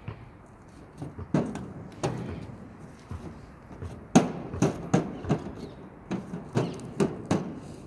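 Thumps of feet on the metal chequer-plate deck of a playground roundabout as a child steps and pushes to spin it. The knocks come irregularly, with a quicker run of them about halfway through.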